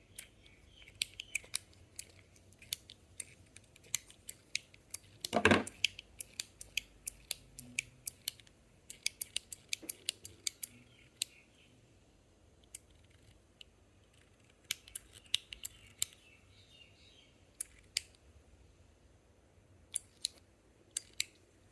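Stainless-steel Metal Toys DZ Top B Snake fidget slider being clicked back and forth, its balls snapping into place. It gives a long run of sharp metallic clicks in irregular bursts, with one louder knock about five seconds in and fewer clicks in the middle.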